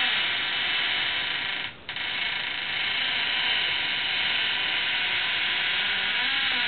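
Aerosol can of WD-40 spraying with a steady hiss, likely onto the squeaking refrigerator's door hinge as a lubricant. It stops briefly about two seconds in, then sprays on.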